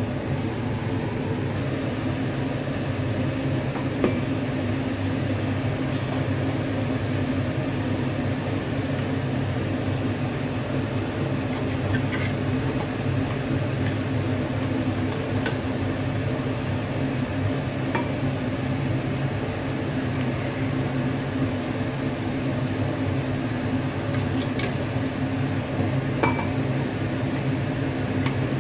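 A few light clinks of a ladle against a steel pot and a ceramic bowl as soup is scooped and served, over a steady machine hum like a kitchen fan.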